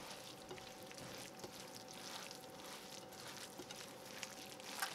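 Faint wet squishing and small clicks of a hand squeezing and mixing soaked bread, egg and chopped vegetables in a ceramic bowl, over a faint steady hum.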